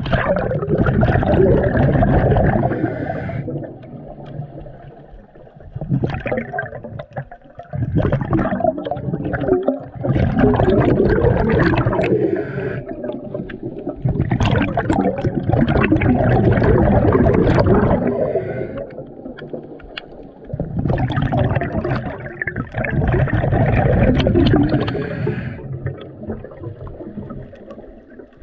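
Underwater gurgling from a diver's exhaled breath bubbling, in muffled surges a few seconds long with short quieter gaps between them.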